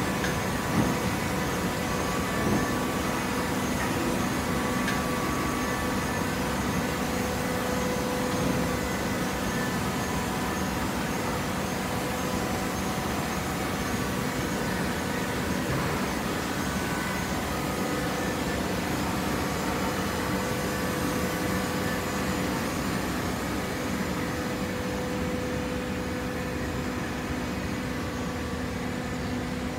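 TCM horizontal hydraulic baler running: a steady hum from its hydraulic power pack with several held tones, and a couple of sharp knocks in the first few seconds.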